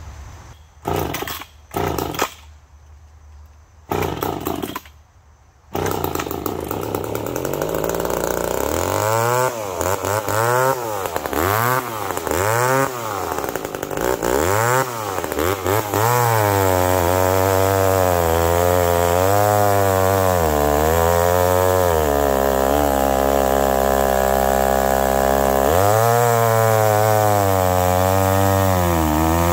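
McCulloch Pro Mac 1010 two-stroke chainsaw sputtering in short bursts a few times, then catching about six seconds in. It is revved up and down several times, then held at high revs and cuts into a log near the end.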